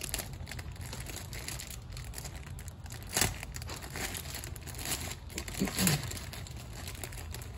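Packaging crinkling and rustling as a plush toy is unwrapped from its package, with two sharper, louder crackles about three and six seconds in.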